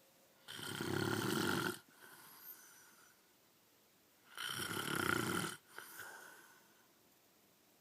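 A man snoring in his sleep: two loud snores about four seconds apart, each about a second long and followed by a quieter breath.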